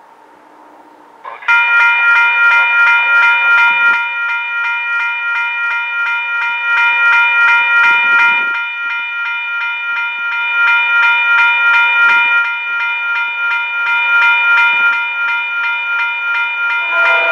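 Railroad crossing bell ringing in a fast, even pulse, starting about a second and a half in as the crossing is activated by the approaching freight train. At the very end a locomotive horn begins to sound.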